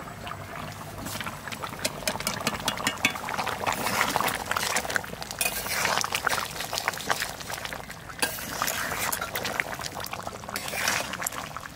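Chicken curry bubbling at a boil in a metal karahi, with the clink and scrape of a metal ladle stirring it against the pan.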